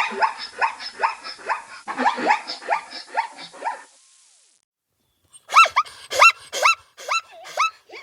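Jackal yelping: a quick run of sharp yaps for about four seconds, then after a short gap a slower series of rising-and-falling yelps, about two a second.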